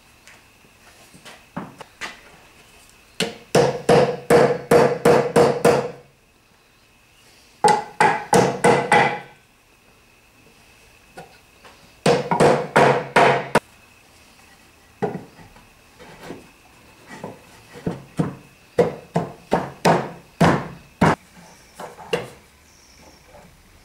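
Hammer or mallet taps on wooden chestnut boards, knocking the glued finger-jointed panels of a chest together. There are three quick runs of several taps a second, then slower single knocks spaced apart near the end.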